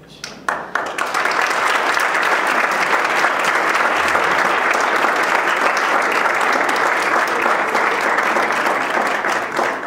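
Audience applauding, starting with a few scattered claps and swelling into steady applause within about a second, then dying away near the end.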